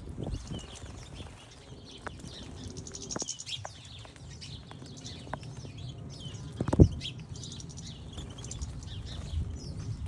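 Small garden birds chirping and twittering. There are scattered light clicks, and one sharp knock about two-thirds of the way through.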